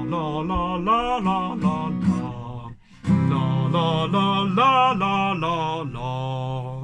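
A voice singing 'la la la' broken-chord vocal warm-up phrases, stepping up and down in pitch over strummed guitar chords. There are two phrases, with a short break a little before halfway.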